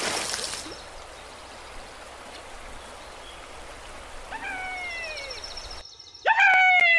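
A water splash dying away, then a steady gentle stream hiss with faint chirps. About six seconds in, a loud call glides downward.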